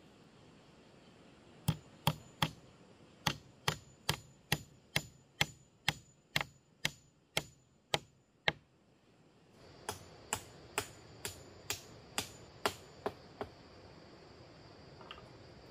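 Rhythmic sharp strikes, about two a second: a run of about fifteen, then, after the background hiss rises, a second run of about nine.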